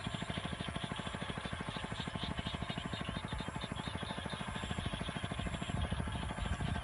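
A small engine running steadily with a rapid, even putter of about a dozen beats a second, a little heavier near the end.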